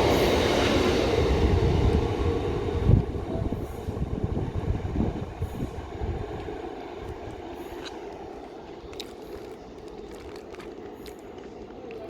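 A train running through the station, loud at first and dying away over about six seconds, with a thump about three seconds in.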